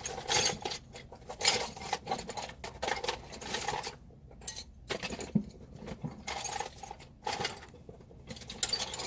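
Metal hand tools clinking and rattling against each other as someone rummages through them for a small wrench. The clatters come irregularly, with a brief lull partway through.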